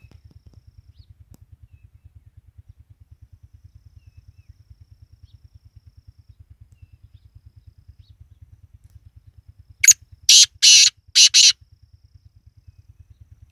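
Black francolin giving its harsh, grating call: a short note followed by four rasping notes in quick succession, about ten seconds in, all within under two seconds. A faint low pulsing hum runs underneath.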